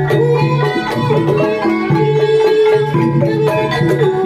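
Banyumasan gamelan playing for a kuda kepang dance: a melody on struck metal keyed instruments over steady drumming.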